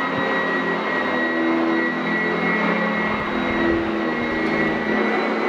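Sanitaire SC899F commercial upright vacuum running steadily, its motor giving a steady high-pitched whine.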